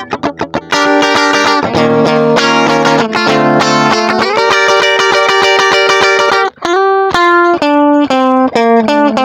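Electric guitar played through overdrive. It opens with a quick run of short picked notes, moves to held notes including one long note bent upward, then goes on with separately picked notes.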